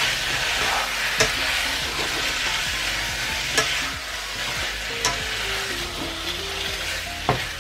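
Raw pork cubes sizzling in hot oil in a nonstick frying pan while a plastic spatula stirs and turns them, searing the meat for goulash. A few sharp clicks of the spatula against the pan stand out over the steady hiss.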